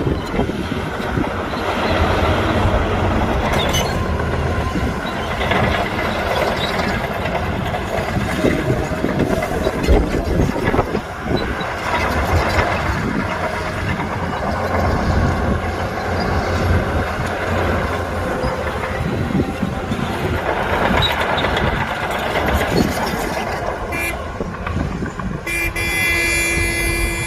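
Diesel engines of heavy earthmoving machines (a bulldozer and dump trucks) working, with knocks and scraping of dirt and rock. About two seconds before the end, a steady vehicle horn sounds and holds.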